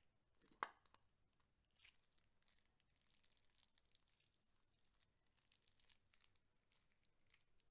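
Faint crinkling and crackling of plastic piping bags being handled, with one sharper crackle about half a second in.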